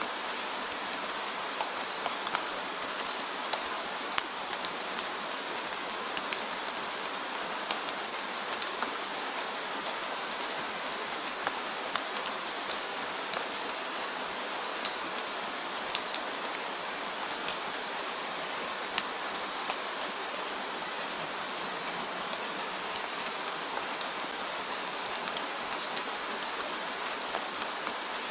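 Steady rain falling on a surface, a continuous hiss with many individual drops ticking through it.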